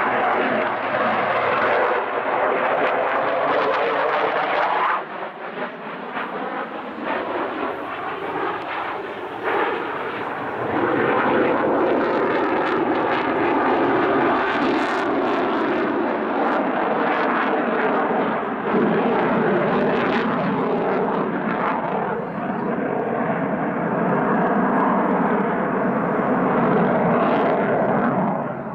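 Eurofighter Typhoon jet fighter flying a display pass overhead, its twin jet engines giving a loud, continuous rushing roar whose pitch glides as it moves. The noise drops back for several seconds about a fifth of the way in, then swells again and stays loud.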